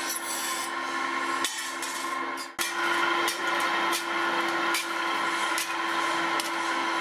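Bench grinder wheel grinding a steel trowel blade, a dense rasping noise over the motor's steady hum. It cuts off about two and a half seconds in, leaving a steady machine hum with faint regular ticks a little under once a second.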